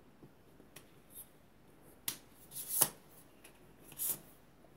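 SilverCrest telescopic metal selfie stick being pushed shut and handled: a few short sliding scrapes and clicks of its sections, the loudest about halfway through.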